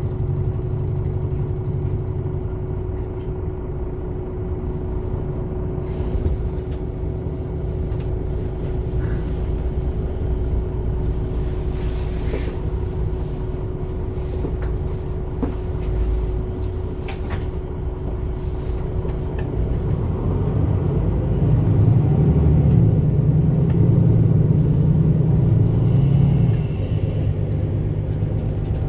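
MAN Lion's City A21 articulated bus's six-cylinder diesel running steadily at a constant low note. About twenty seconds in it grows louder and rougher, as under acceleration, with a faint high whine gliding up and then down, and it settles back near the end.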